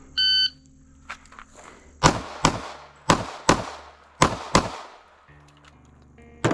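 Electronic shot-timer start beep, then six pistol shots fired in three quick pairs.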